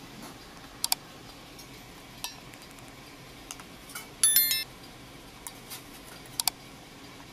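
Quick double mouse-click sound effects about a second in and again near the end, and a short bright bell-like ding about halfway through. Between them, a faint clink of a steel ladle against a steel pot.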